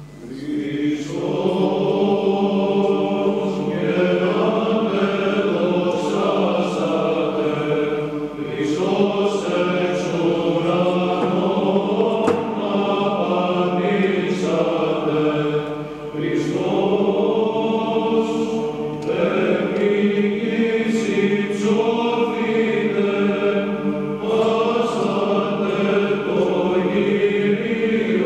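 Men's choir singing Byzantine chant, a Greek Orthodox hymn of the Christmas season. A moving melody runs over a steady held low drone. The singing comes in about half a second in, with brief breaks between phrases.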